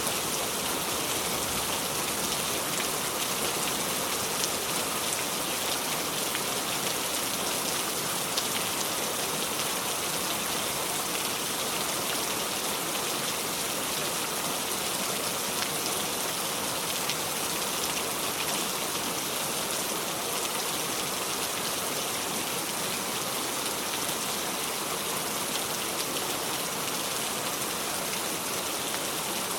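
Steady heavy rain falling on surfaces, an even hiss with scattered fine drop ticks and no thunder.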